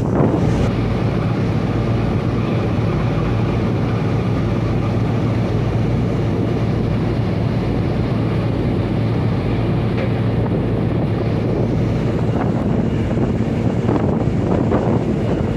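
Steady low drone of a passenger ferry's engines while underway, with wind buffeting the microphone over a rushing hiss.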